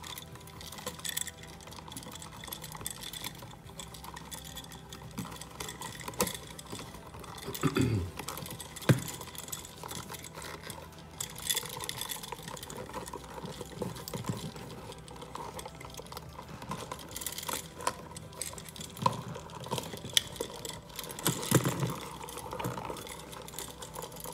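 Hands working electrical cables and wires at a wiring box: irregular small clicks and rustles, with a few louder knocks about eight and nine seconds in and again near the end.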